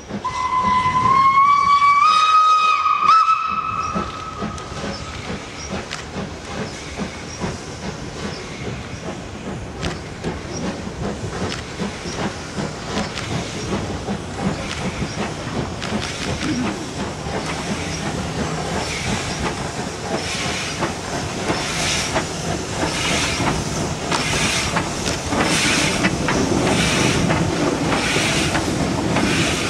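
The steam whistle of the 140 C 231, a 2-8-0 Consolidation steam locomotive, gives one long blast of about three seconds, its pitch rising slightly. The locomotive then works its train along with slow, regular exhaust beats over a hiss of steam, about one and a half beats a second, growing louder toward the end.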